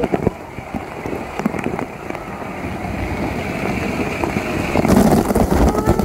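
Rushing, splashing water around an inner tube on a water park ride, heard through a waterproof phone pouch. It builds and gets louder and rougher about five seconds in, as the water churns up around the tube.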